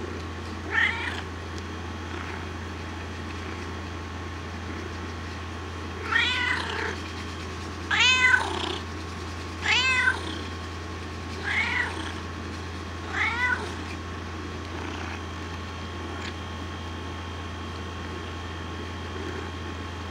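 Calico cat meowing six times: one meow about a second in, then a run of five evenly spaced meows, each rising and then falling in pitch.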